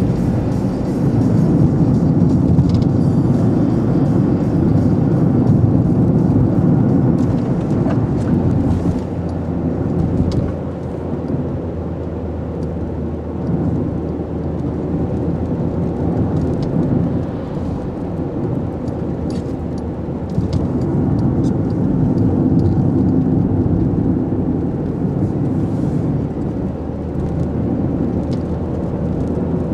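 A car driving along a road, heard from inside the cabin: a steady rumble of engine and tyres that eases off a little about a third of the way through.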